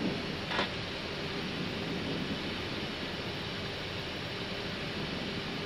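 Steady in-flight cockpit noise of an Airbus A319 on approach: an even rush with a faint steady hum, and one brief click about half a second in.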